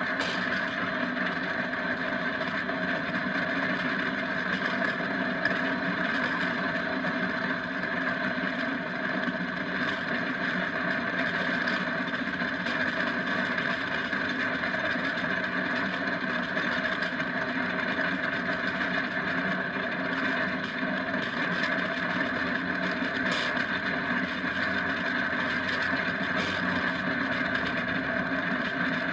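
Steady rush of wind and tyres on asphalt, heard from onboard an engineless downhill kart running at speed.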